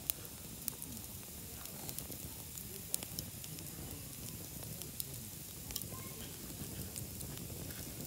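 Wood fire crackling in a small folding steel fire grill: sharp, irregular pops, the loudest just after the start and about three and five seconds in, over a low steady rumble of burning wood.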